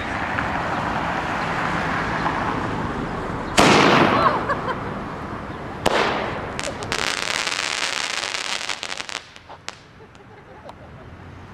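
Black Cat Paratrooper Smoke Screen firework: after a few seconds of steady hiss, a sudden loud launch at about three and a half seconds in. About two seconds later comes a second pop as the shell separates high up, followed by a couple of seconds of crackling sparks that die away with a few last faint pops.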